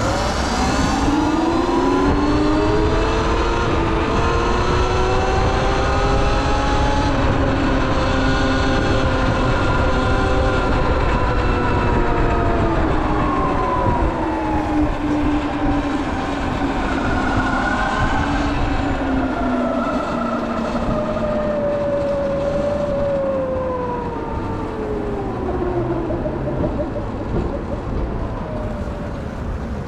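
Electric dirt bike motor whine, climbing in pitch at the start, holding, then sliding slowly down through the second half as the bike changes speed, over a steady low rush of wind and road noise.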